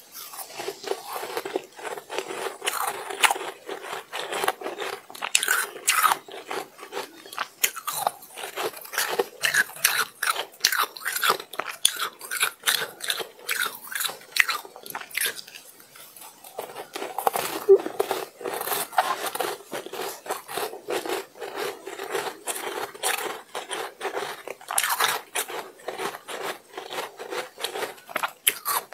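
Close-miked crunching and chewing of shaved ice: a dense, continuous run of crisp crackles and crunches, thinning out briefly about halfway through.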